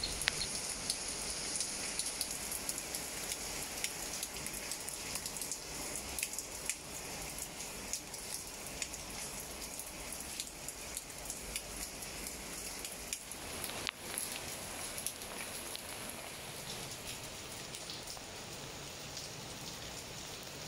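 Steady rain falling on leafy plants, many separate drops ticking through a continuous patter, with a brief drop in level about two-thirds of the way through.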